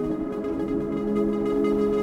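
Background music: calm ambient music with long, held chords.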